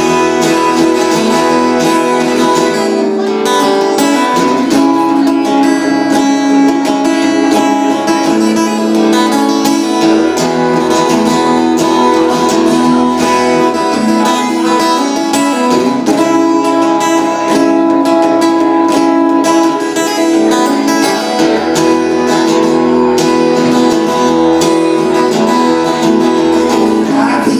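Acoustic guitar strummed and picked steadily through an instrumental break between sung verses of a blues-folk song.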